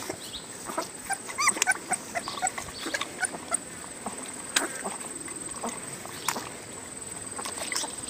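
Several puppies lapping and slurping milk from shallow pans: a run of small wet clicks, with a few short, high whimpers about one to two seconds in.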